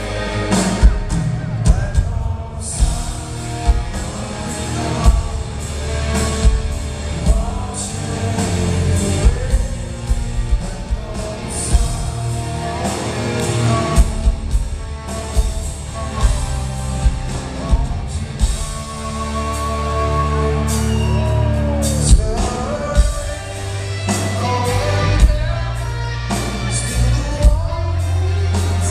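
Rock music with singing over drums.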